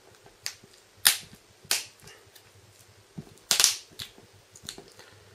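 Plastic back cover of a Samsung Galaxy S4 snapping into place as fingers press around its edges: a series of sharp, irregular clicks, the loudest a close pair about three and a half seconds in.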